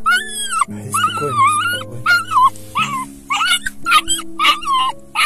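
Puppy screaming in a rapid series of high-pitched cries, about two a second, one of them longer and wavering. It is in distress at the car moving.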